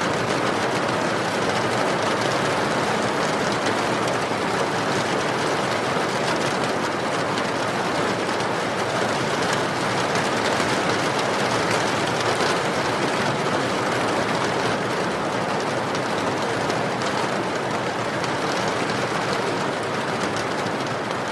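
Steady rain falling, an even hiss with no breaks or single drops standing out.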